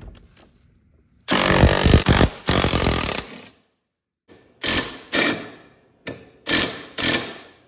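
A handheld power tool run in two bursts of about a second each, then, after a pause, five short pulls.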